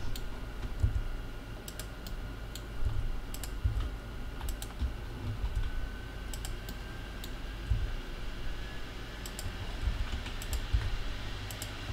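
Computer keyboard keys and mouse buttons clicking in scattered, irregular taps while shortcut-driven 3D modelling commands (extrude, resize, rotate) are entered, over a steady low hum.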